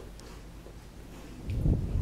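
A low, muffled bump lasting well under a second, about one and a half seconds in, over faint low background noise.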